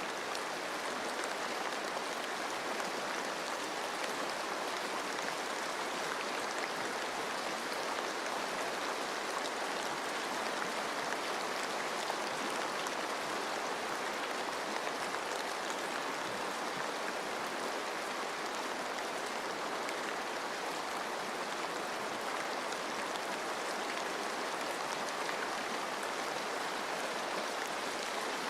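Steady rain falling in a forest, mixed with running stream water: an even, unbroken hiss with faint scattered drop ticks.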